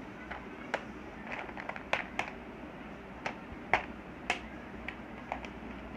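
Pencil drawing curved lines on paper: scattered short, irregular clicks and ticks over a faint steady hiss.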